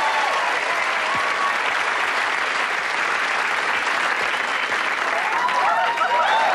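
Audience applauding steadily, with a few voices calling out near the end.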